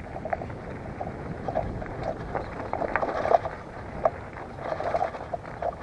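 Mountain bike rolling over a rough dirt path strewn with loose stones: tyres crunching on gravel, with irregular clicks and rattles as the bike jolts over the rocks.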